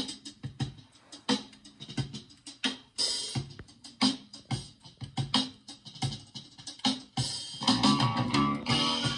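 Music playing from a vinyl record on a BSR three-speed record changer: sharp drum beats with gaps between them, then a fuller band sound with guitar about seven and a half seconds in.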